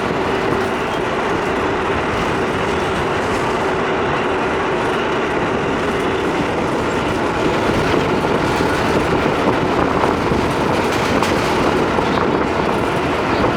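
Vintage Lo-V New York subway car running along the track, heard from inside the car: a steady rumble and hiss of wheels on rail, with a faint even hum underneath.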